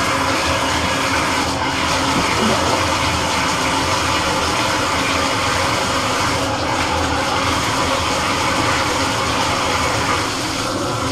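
Water running hard and steady from a newly installed bathtub spout into the tub, shutting off near the end.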